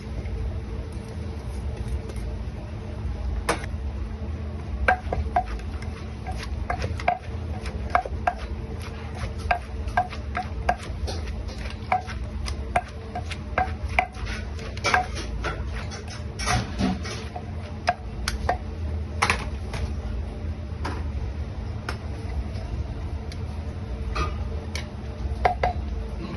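Kitchen utensils clinking and tapping against cookware while food is stirred and worked, a string of short sharp clicks, at times about two a second, over a steady low hum.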